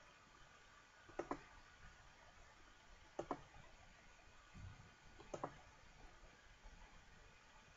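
Computer mouse button clicking: three quick pairs of clicks about two seconds apart as points are placed on an automation envelope, over faint room tone.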